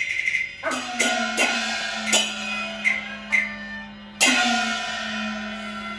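Cantonese opera percussion: about seven struck gong and cymbal beats at an uneven pace, each ringing on, the loudest about four seconds in, over a steady low held tone.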